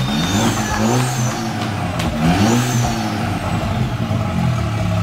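Golf 7 GTI's turbocharged 2.0-litre four-cylinder engine, freshly swapped in and just started for the first time, running and revved twice: the pitch rises and falls each time, with a high whine swelling along with each rev.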